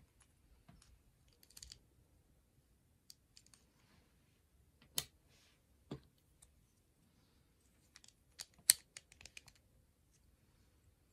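Plastic Lego bricks clicking as pieces are picked up from a tabletop and pressed onto a model: scattered small clicks, with a sharp one about five seconds in and a quick run of clicks about eight seconds in, the loudest of all.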